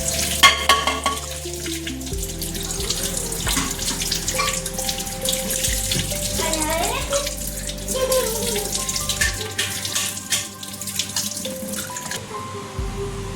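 Water running or pouring from a tap, with background music.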